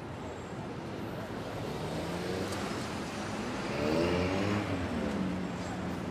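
Street traffic noise with a motor vehicle passing by: its engine note climbs and then drops in pitch as it goes by, loudest about four seconds in.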